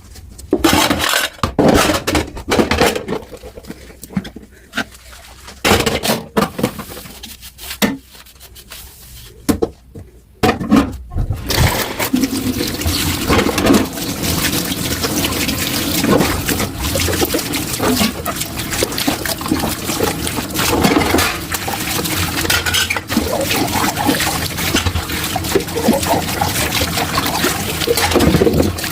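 Dishes and cutlery knocking and clinking in a kitchen sink, then, about eleven seconds in, a tap running steadily into the sink as dishes are washed by hand, with occasional clinks under the water.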